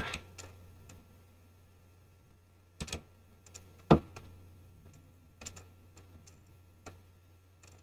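Computer mouse clicking: several separate clicks a second or more apart, the loudest about four seconds in, over a low steady hum.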